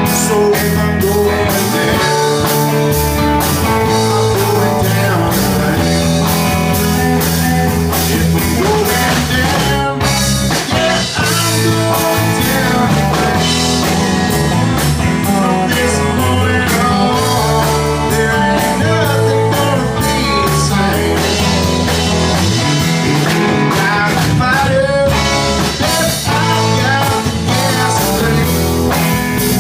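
Live rock-blues band jamming: electric guitar playing a lead with bent notes over bass guitar and a steady drum beat.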